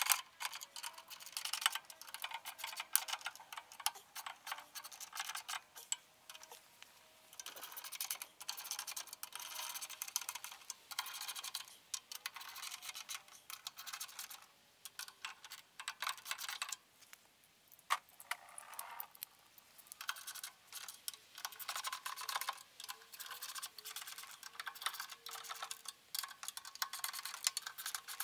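Irregular clicking and clinking of hand tools and metal parts as a pool heater is reassembled, with brief pauses every few seconds.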